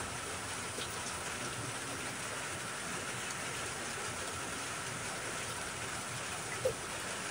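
Steady rain falling, an even hiss, with a single short tap near the end.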